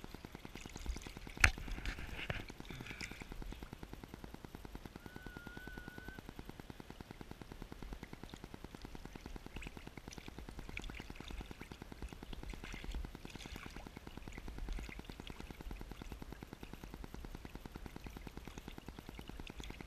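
Sea water lapping and sloshing right at the water surface, with a fine rapid crackle throughout and one sharp knock about a second and a half in.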